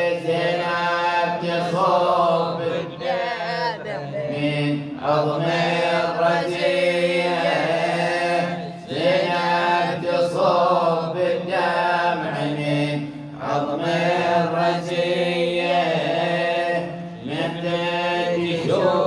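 Chanted vocals of an Arabic Shia mourning elegy, sung in long, bending phrases over a steady low drone, with no instruments heard.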